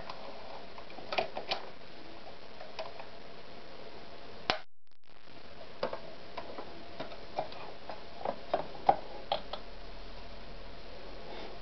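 Irregular light clicks and taps from handling a Victoria 128 FE sewing machine's mechanism, over a steady low hiss, with a brief gap just under five seconds in.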